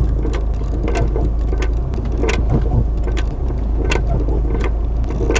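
Inside a moving Hyundai Maxcruz cabin: a steady low rumble of road and engine noise, with irregular sharp knocks and clatters of something loose rolling back and forth, a noise the mechanics trace to the floor under the driver's seat.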